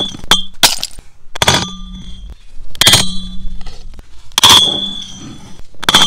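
A glass bottle being struck with a Blackview BV6200 Pro rugged smartphone: a few quick hits, then heavier blows about a second and a half apart. The bottle rings with a clear tone after each blow.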